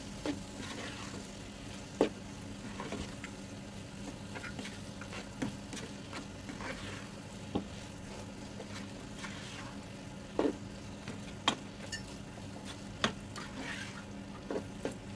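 Spiced cauliflower sizzling in a nonstick frying pan as it is stirred and turned with a spatula. Scattered sharp taps and scrapes come from the spatula against the pan, over a steady low hum.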